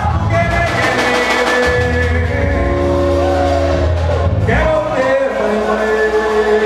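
Pagode samba band playing, with a voice singing long held notes over bass and percussion.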